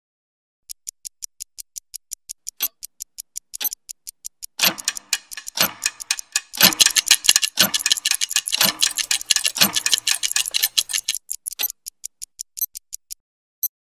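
Intro sound design: a fast, even run of clock-like ticks, about five a second, joined about four and a half seconds in by heavier low hits about once a second over a fuller musical bed. The hits stop about eleven seconds in, the ticks thin out, and one last tick comes near the end.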